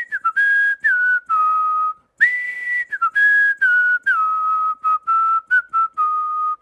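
A whistled tune: two phrases, each opening on a high held note and then stepping and sliding down through shorter notes, with a brief pause between the phrases about two seconds in.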